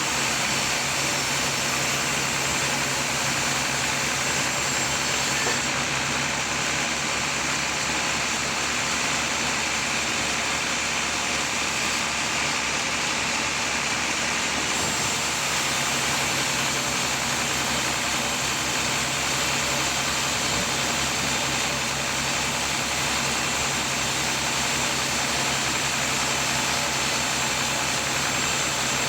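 Sawmill saw and its drive motor running steadily while sawing a large teak log: an even hum with a dense hiss of cutting over it.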